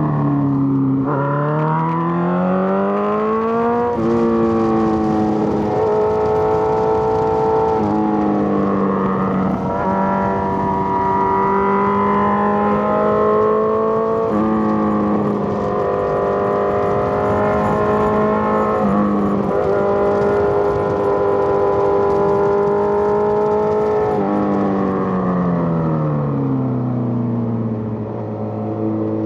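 Suzuki GSX-R1000 inline-four engine heard from the rider's seat, pulling up in pitch and then dropping at a gear change about four seconds in. It holds a fairly steady pitch through the middle with a few small shifts, then falls away steadily near the end as the bike slows.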